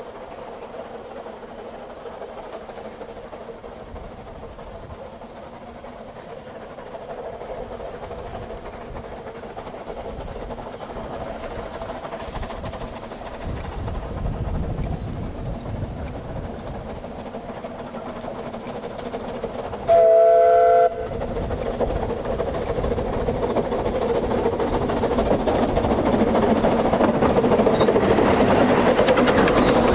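Steam locomotive and train drawing closer, growing steadily louder. It gives one short blast on its steam whistle about two-thirds of the way through.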